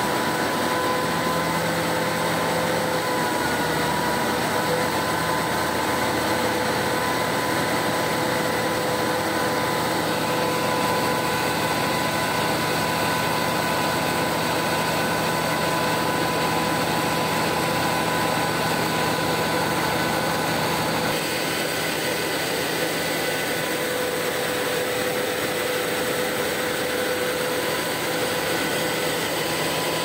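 Diesel engine of a mobile wood chipper running steadily with a constant whine over its noise, the pitch and level shifting slightly about two-thirds of the way through.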